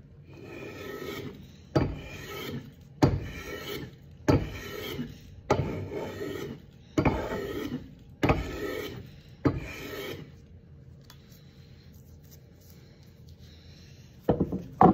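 Hand plane shaving a wooden handle blank: eight strokes, about one every 1.2 seconds, each a sharp bite followed by a short scraping hiss. The strokes stop, and near the end come two sharp knocks as a plane is set on the bench.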